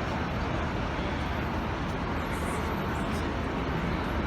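Steady low rumble and hiss of vehicle and street noise, with no distinct events.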